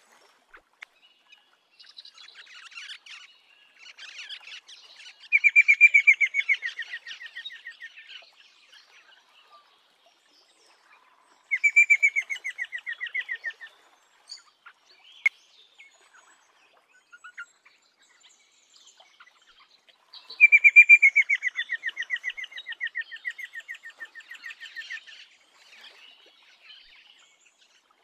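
A rosella giving three bursts of rapid chattering calls: fast runs of sharp, evenly repeated notes that start loud and fade away, with softer chatter in between.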